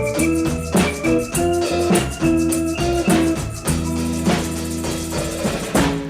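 Background music: an upbeat song with a steady drum beat and sustained keyboard chords.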